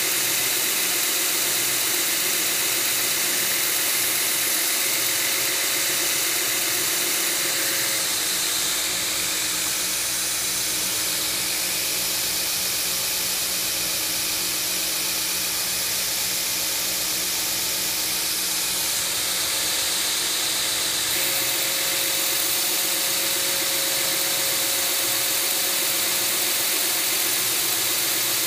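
A 2x72 belt grinder running a ceramic belt over a 4-inch contact wheel, hollow-grinding a steel straight-razor blank held in a jig: a steady hiss of belt on steel. About eight seconds in the grinding stops while the belt keeps running, and it resumes about twenty-one seconds in.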